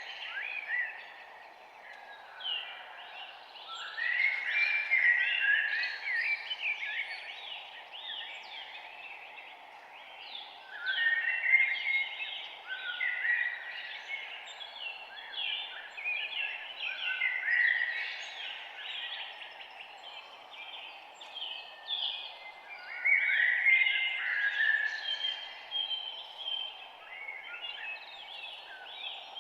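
Songbirds singing in spells of quick, sweeping chirps and trills that come and go every few seconds, over a steady background hiss.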